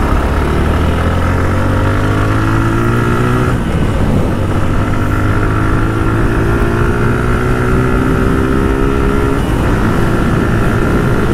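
Suzuki Gixxer's single-cylinder engine under way, its pitch climbing steadily as it accelerates and dropping twice, about three and a half and nine and a half seconds in, as it shifts up a gear. A steady rush of wind on the rider-mounted microphone runs under it.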